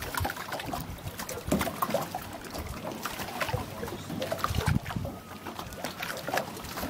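Lake water lapping and sloshing against a wooden dock, with scattered small splashes and knocks.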